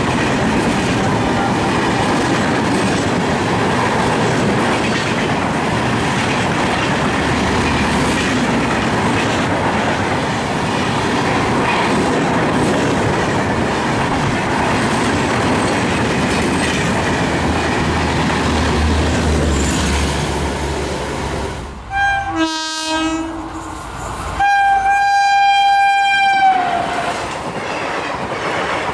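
Humsafar Express LHB coaches running through at speed, a steady rushing noise of wheels on rail. Near the end come two train horn blasts, a short one and then a longer one of about two seconds that drops in pitch as it cuts off, followed by coaches rolling past.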